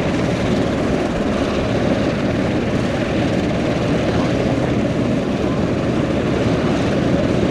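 Lockheed P-38L Lightning's twin Allison V-1710 V12 engines running steadily at taxi power, both propellers turning, as the aircraft rolls along the taxiway.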